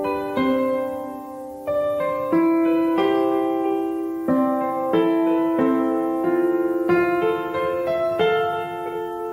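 Background piano music: a slow, gentle piece of single notes and chords struck one after another and left to ring.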